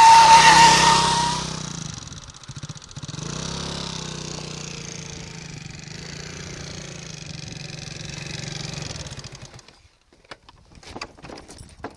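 Vehicle brakes squealing with a steady, piercing high tone for the first second and a half. The vehicle's engine then runs steadily for several seconds and dies away, with a few sharp clicks near the end.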